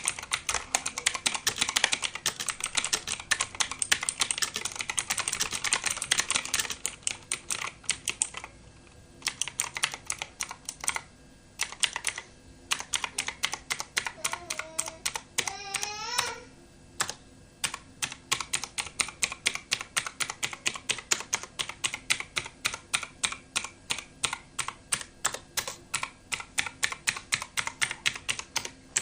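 Armaggeddon MKA-3C mechanical keyboard being typed on: fast continuous typing for about the first eight seconds, then sparser keystrokes, and in the second half single keys struck at a steady pace of about two to three a second. A short rising voice sound comes about fifteen seconds in.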